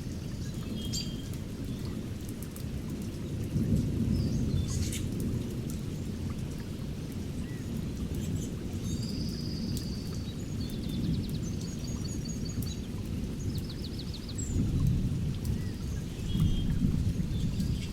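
Thunderstorm with steady rain and low rolling thunder that swells and fades, while birds chirp and sing rapid trills over it, most in the middle.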